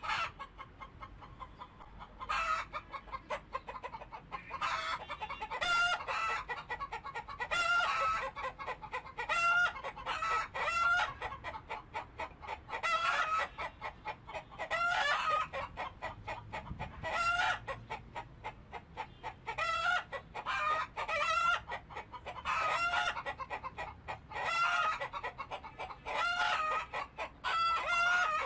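Chickens calling and clucking over and over, one call after another through the whole stretch, with rapid short clucks in between.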